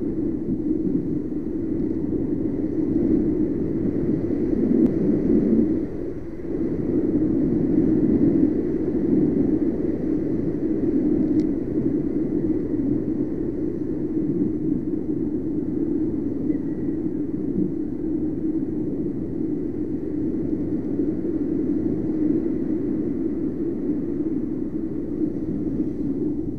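Riding noise of a Yamaha NMAX scooter on a wet road: a steady low rush of wind and road noise, dipping briefly about six seconds in.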